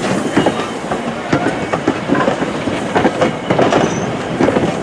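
Railroad cars rolling along the track, their wheels clacking irregularly over the rail joints.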